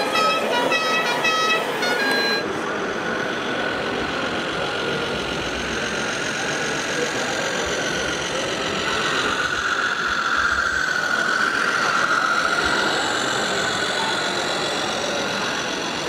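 RC model trucks' sound modules running, with engine noise and a wavering horn-like tone that is loudest about two thirds of the way through, over the steady crowd din of an indoor hall. A run of short stepped tones at the start cuts off abruptly about two and a half seconds in.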